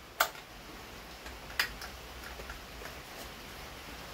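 Sharp clicks from handling a chainsaw that is not running: one about a quarter second in, another about a second and a half later, and a few fainter ticks between.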